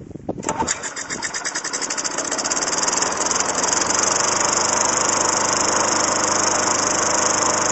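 Craftsman 6.25 hp lawn mower's single-cylinder engine catching on a pull-start after heavy priming with its primer bulb. It fires about half a second in, picks up speed over the next couple of seconds, then runs steadily.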